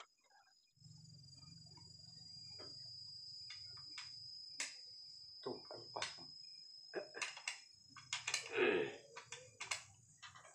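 Scattered sharp clicks and taps of metal as a motorcycle exhaust muffler is handled and worked on by hand, over a steady high-pitched whine and a low hum. A louder sound with a falling pitch comes about eight and a half seconds in.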